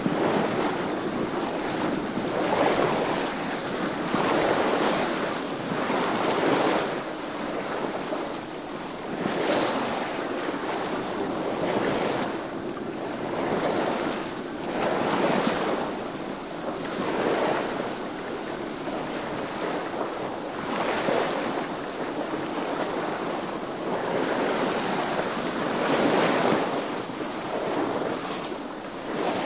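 Boat sailing through water: waves washing and splashing against the hull in swells about every two seconds.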